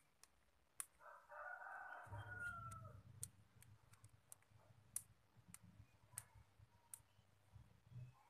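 Light clicks of wooden bracelet beads knocking together as the bracelet is turned in the fingers. A drawn-out animal call of about two seconds, ending on a falling note, sounds in the background about a second in, and a low hum starts shortly after it.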